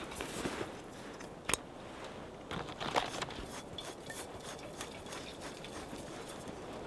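Scattered clicks and light knocks of camp gear being handled, with a sharper knock about one and a half seconds in and another around three seconds in.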